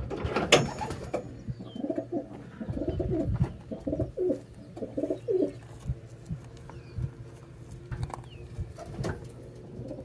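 Racing pigeons cooing, a string of low repeated coos through the first half, with scattered sharp taps and knocks.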